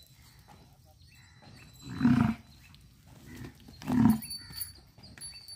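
A bull making two short, loud calls, about two seconds apart.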